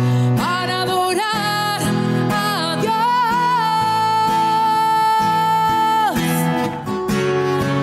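A religious song: a solo voice singing over strummed acoustic guitar. The singer holds one long note for about three seconds and then lets it fall away, and the guitar carries on alone near the end.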